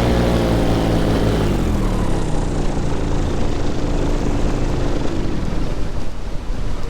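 Bulldog Spirit Atom 80 paramotor's two-stroke engine and propeller being throttled back: its pitch falls over the first couple of seconds and the engine sound fades out by about five seconds in, leaving steady wind rush on the microphone.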